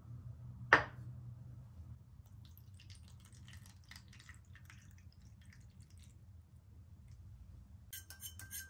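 A single sharp clink about a second in, then faint water trickling onto cornstarch in a small stainless steel cup. Near the end comes a fast run of ticks as a wire whisk stirs the starch slurry against the cup.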